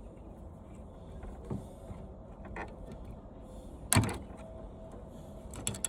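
Scattered light clicks and rattles of old TV parts and wires being handled on a table, with one sharp knock about four seconds in, over a low steady hum.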